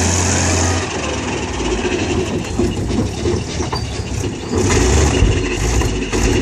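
Engine of an ex-military tracked armoured vehicle running as it creeps forward, with the tracks clanking over the ground. The engine note drops about a second in and picks up again near the five-second mark.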